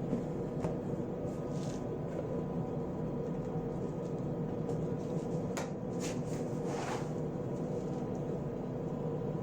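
Steady electrical machine hum, with a few brief rustles and clicks of handling gear, the loudest of them about two-thirds of the way through.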